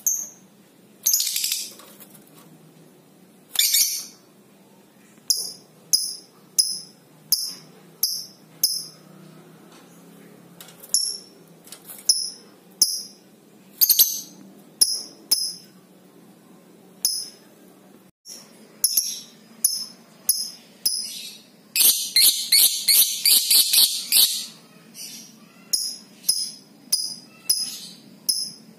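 Lovebird calling: a string of short, sharp, high-pitched chirps about one to two a second, broken near three-quarters of the way through by a long, rapid chattering trill, the ngekek that keepers hear when the bird is stirred up by a rival.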